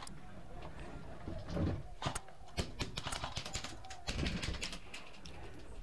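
A caged pet dove or pigeon cooing softly a couple of times, with scattered sharp clicks.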